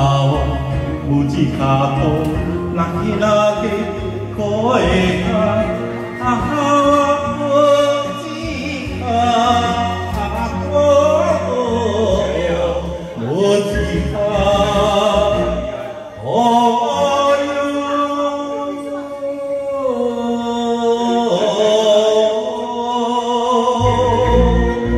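A man singing a Japanese enka song into a microphone over a karaoke backing track, holding long notes that glide between pitches.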